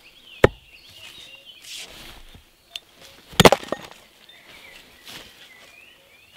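Hard wooden knocks of a firewood log being handled on a wooden chopping block. There is one sharp knock about half a second in, then a louder clatter of several knocks a few seconds later as the log won't stay standing.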